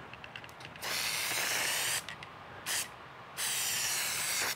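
Aerosol can of spray adhesive spraying glue onto boards: a hiss lasting about a second, a short puff, then another hiss of about a second.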